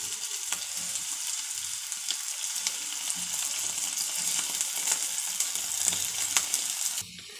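Square-cut bread slices frying in hot oil in a kadai: a steady sizzling hiss with many small crackles, which cuts off abruptly near the end.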